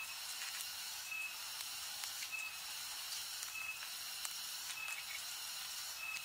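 Faint steady hiss, with a short high-pitched chirp repeating evenly about every second and a quarter.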